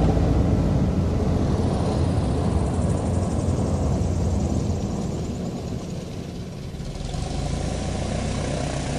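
Light single-engine propeller plane running as it taxis, loud at first, then throttling back around the middle to a steady idle.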